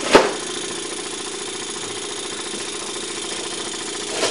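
Luton Bowman BM valveless model marine steam engine running steadily on live steam, driving a small dynamo, with a steady mechanical hum. A single sharp click comes just after the start.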